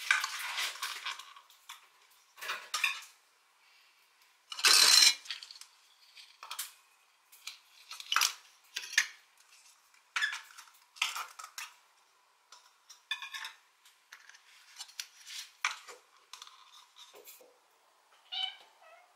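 Clear plastic dessert cups being handled and fitted together: irregular light plastic clicks and clatters, with one louder clatter about five seconds in.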